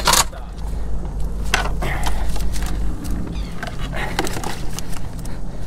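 Cast net being shaken out over a bucket: irregular clicks, rattles and rustles of the mesh, its lead chain and the prawns dropping in, starting with a sharp knock. Under it, the low steady hum of the boat's idling motor.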